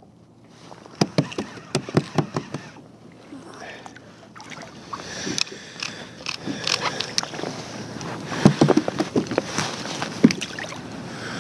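Irregular knocks and clatter of fishing tackle being handled on a kayak, a rod and reel lifted and moved about, growing busier and louder through the second half.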